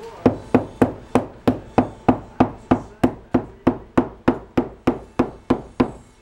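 Hammer striking in a steady run, about three blows a second, closing down a Curve-Ease flexible metal tack strip along the edge of an upholstered outside back.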